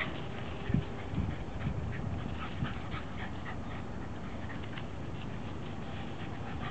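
Shiba Inu dogs playing on dry wood chips and leaves: panting, with paws scuffling and crackling through the chips, and a few low thumps in the first few seconds.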